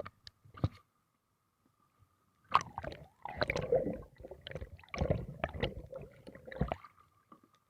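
Water splashing and sloshing around a stand-up paddleboard and paddle, in several irregular bursts with silent gaps between them.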